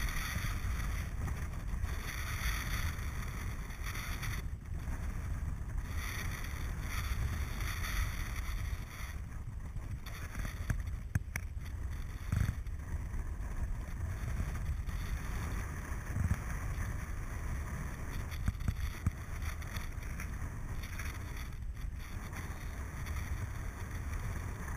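Rushing airflow of a paraglider in flight buffeting the camera microphone: a steady low rumble of wind noise, with a few brief clicks.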